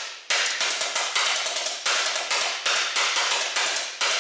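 Homemade 1 1/4-inch pipe pulse detonation engine firing: a rapid train of sharp detonation bangs, about three a second, each dying away quickly, with a brief gap just after the start.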